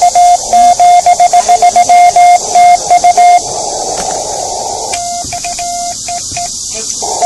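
Morse code (CW) from a small portable ham radio transceiver's speaker: a single-pitch tone keyed in quick dots and dashes, with radio hiss between. About halfway through, the code stops for a second or so of plain hiss, then a shorter run of code follows and gives way to hiss again.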